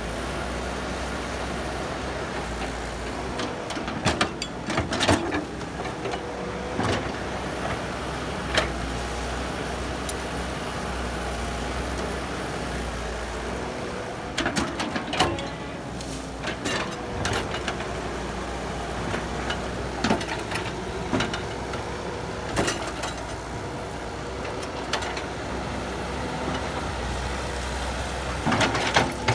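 Heavy diesel machinery engine running steadily, with scattered short metallic clanks and knocks, several in quick clusters.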